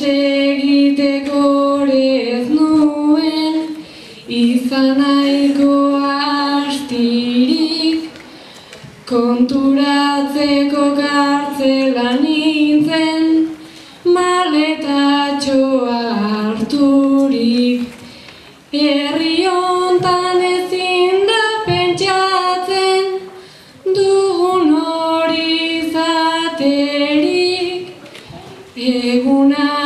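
A girl singing Basque bertso verses solo and unaccompanied to a traditional melody, in long held phrases of about four seconds each with short breath breaks between.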